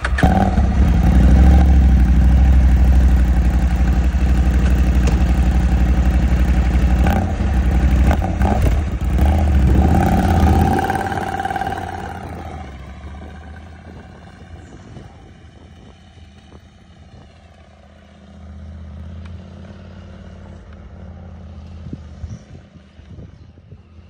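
Adventure motorcycle engine running close by, revved a few times around eight to ten seconds in, then pulling away and fading into the distance after about twelve seconds.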